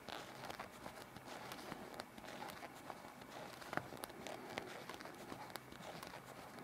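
Faint, irregular clicks and soft rustles of knitting needles working knit stitches.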